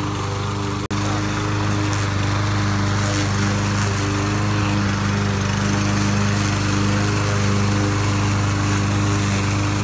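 Troy-Bilt TB110 push mower's small Briggs & Stratton engine running steadily at a constant speed while mowing grass, with one very brief dropout just under a second in.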